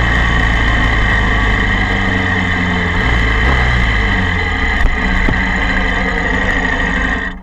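Honda VFR400's V4 engine running at low revs as the bike rolls slowly, then cutting off suddenly near the end as the engine is switched off.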